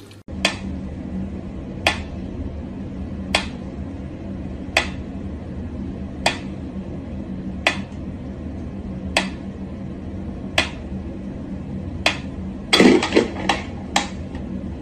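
Mechanical pendulum metronome ticking slowly and evenly, about one sharp tick every second and a half. Near the end a quick cluster of louder knocks and a thump breaks the beat.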